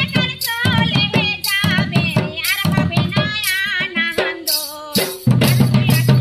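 Village folk dance music: a two-headed barrel drum beating a steady rhythm under a woman singing with a wavering, ornamented voice. A low steady hum joins about five seconds in.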